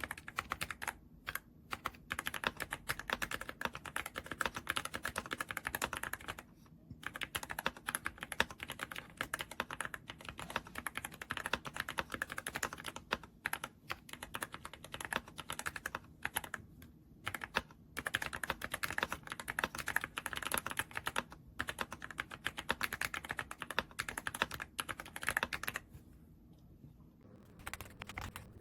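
Typing on the YUNZII AL66 65% aluminum mechanical keyboard: a fast, steady run of key clacks broken by a few short pauses, stopping a couple of seconds before the end.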